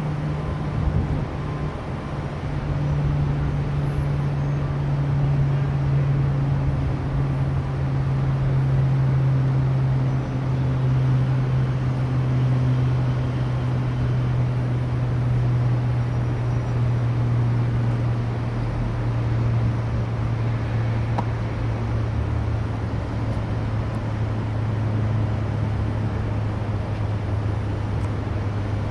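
Low, steady mechanical hum whose pitch slowly falls through the whole stretch, over outdoor city traffic noise.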